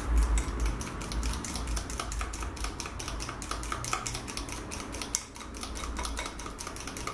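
Homemade mayonnaise of egg and olive oil being beaten by hand in a small glass bowl: a utensil strikes the glass in fast, even clicks, about six a second, with a brief let-up around five seconds in.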